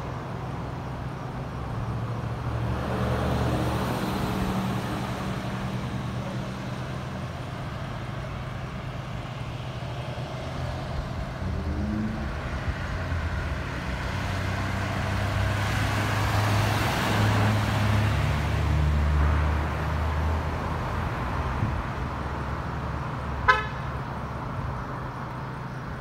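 Street traffic: car engines running as vehicles pass, swelling and fading a few times, with one brief horn toot near the end.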